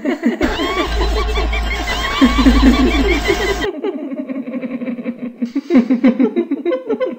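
Eerie laughter in quick repeated bursts, with a low drone under its first half.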